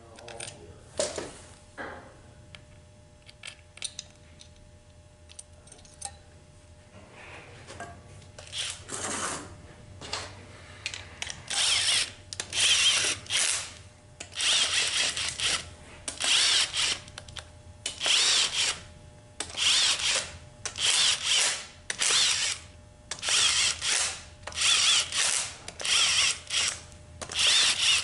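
Handheld power driver run in short bursts about once a second, driving bolts into the transmission, after several seconds of faint clicks of parts being handled.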